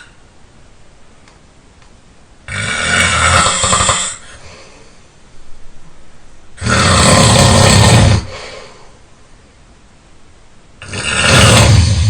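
A person snoring loudly: three long snores about four seconds apart, each lasting about a second and a half, with much quieter breathing sound between them.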